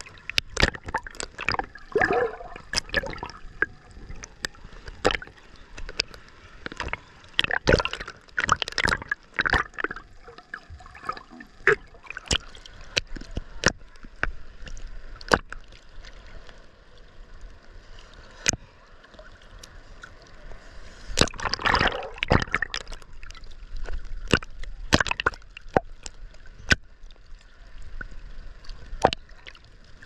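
Ocean water sloshing and splashing close to the microphone at the waterline, gurgling while it dips under, with many irregular sharp splashes, busiest near the start and again about two-thirds of the way through.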